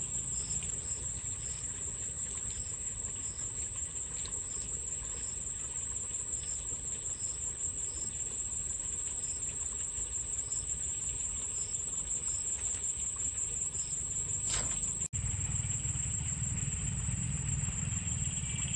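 Riverbank ambience: a steady high-pitched insect drone over a low rumble, with faint regular high chirps for most of it. About fifteen seconds in the sound cuts out for an instant, and after that the low rumble is louder.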